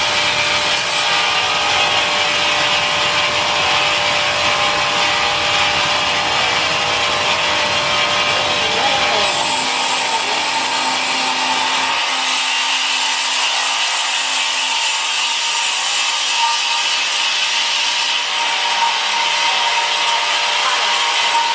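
Power sawing machine cutting ironwood: a steady, loud rasping saw noise. The low rumble under it falls away about halfway through.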